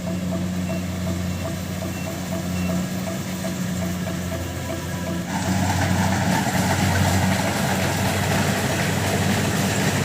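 Diesel engine of a Kubota DC70 Plus combine harvester running steadily, becoming louder and fuller about five seconds in as it takes on more load.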